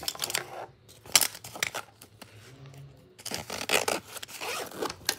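Zipper of a fabric pencil case being pulled closed in several short rasping strokes in the second half, after light clicks and rustling of a pen being dropped back inside.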